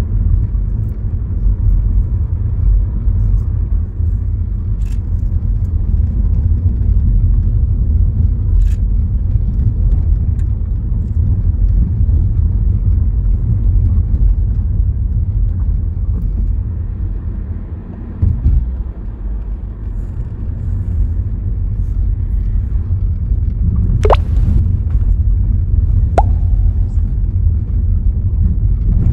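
Steady low rumble of a car driving along a road, its road and engine noise easing briefly about two-thirds of the way in. Near the end come two short, quickly rising chirps.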